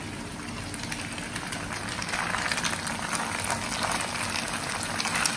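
Cooked rice tipped into a hot wok of fried noodles and vegetables and crumbled by hand, a soft sizzle and rustle that grows louder about two seconds in, over a steady low hum.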